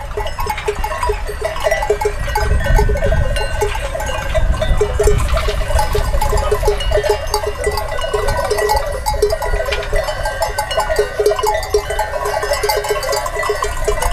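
Many livestock bells clanking at several different pitches as a flock of sheep and goats moves about, with sheep bleating among them. A low rumble swells briefly a few seconds in.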